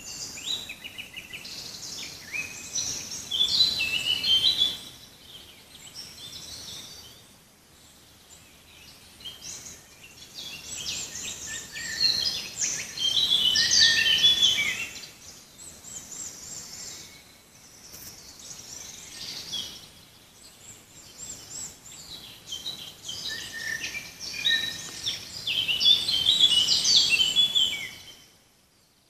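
Songbirds singing in a forest: three bouts of fast, varied, high chirping phrases, the first near the start, one in the middle and one near the end, with quieter spells between over faint background hiss. The song fades out at the end.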